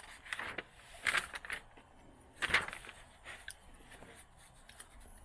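Paper notebook being handled: several short rustles and scuffs as its pages are turned and it is slid aside, the loudest about two and a half seconds in.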